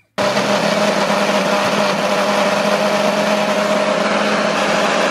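Single-serve bullet-style blender motor running steadily, blending fruit chunks and juice into a smoothie; it starts a fraction of a second in.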